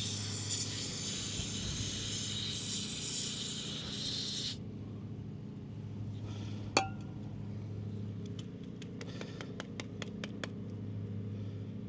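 Aerosol spray can hissing for about four and a half seconds as it flushes copper anti-seize out of a brake caliper slide-pin bore, then one sharp ringing clink and a run of light clicks as small metal parts are handled.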